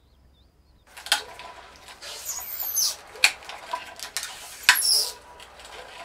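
Kapton tape being pulled off its roll and stuck onto a ceramic-fibre chamber: rasping and crackling, with sharp clicks and high squeals as the tape peels off. It starts about a second in.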